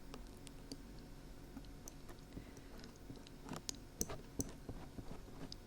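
Small crackling clicks of dried glue being peeled off the ears of a binaural dummy-head microphone. They are sparse at first and come closer together about three and a half seconds in.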